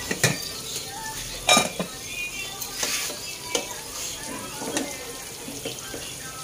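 Isaw (chicken intestines) deep-frying in hot oil in a wok: a steady sizzle with a few sharp pops or knocks, the loudest about a second and a half in.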